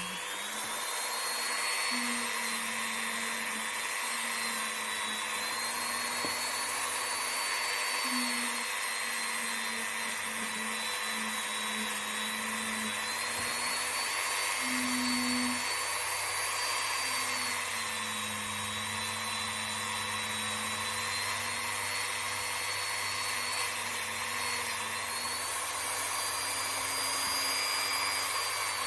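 Dremel rotary tool fitted with a nylon brush, running steadily while scrubbing dirt off a revolver's hammer and trigger. Its high whine sags and recovers slightly as the brush bears on the part, with a few louder scuffs about three-quarters of the way through.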